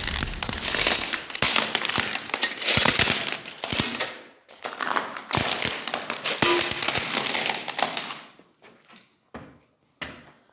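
Dense crunching and crackling full of small clicks, which stops suddenly about eight seconds in; a few scattered clicks follow.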